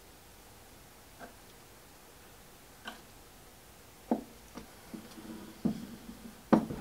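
Small metal clicks and knocks from hand-adjusting the slide of an AOCKE AX16RE magnetic drill: its gib set screws and lock nuts being set. A couple of isolated clicks, then a quicker run of knocks from about four seconds in, some with a short metallic ring, the loudest near the end.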